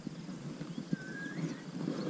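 A bird's short whistled call, one gliding note about a second in, over low, uneven wind rumble on the microphone.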